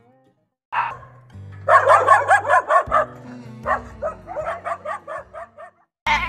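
A dog barking in play, a quick run of short, high yaps at roughly four a second with a brief pause partway through, over background music.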